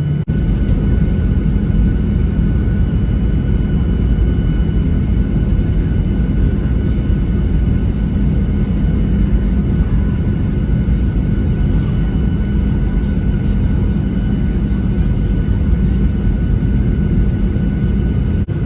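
Jet airliner engine noise heard inside the cabin: a loud, steady rumble with a faint constant high whine over it.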